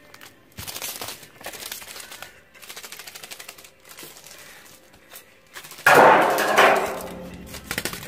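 Brown sticky tape on a cat's paws crackling in rapid runs as it sticks to and peels off a concrete floor under its steps, with a louder rasping peel about six seconds in.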